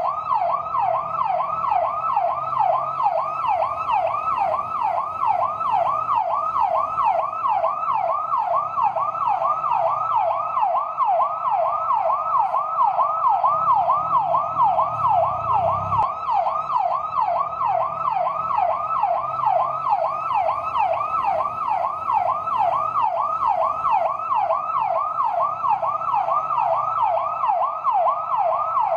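Fire truck siren in yelp mode: a fast, continuous warble, its pitch sweeping up and down about three times a second without a break.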